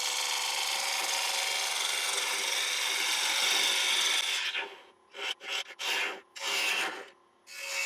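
Bowl gouge cutting a spinning ash bowl on a wood lathe: a steady hiss of shavings for about four seconds, then a few short cuts with gaps as the tool comes off the wood, then steady cutting again near the end.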